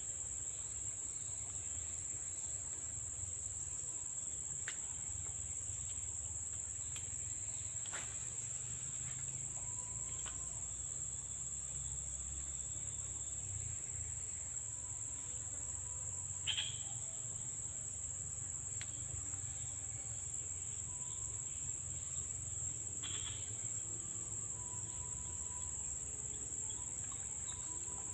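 Steady, high-pitched chorus of insects such as crickets, with a low rumble underneath. A few faint clicks, and one brief sharper sound just past halfway.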